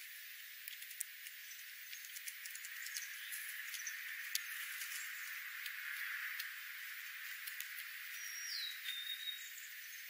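Birds pecking at birdseed scattered on gravel: irregular small clicks over a steady hiss. Near the end, a single short, high bird call slides down and then holds a note.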